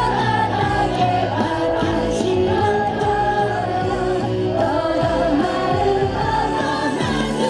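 Yosakoi dance music with singing, playing steadily and loudly throughout.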